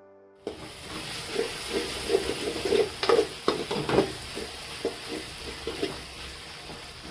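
Food sizzling as it fries in a pan, with a utensil stirring and scraping against the pan. The stirring is busiest about three to four seconds in.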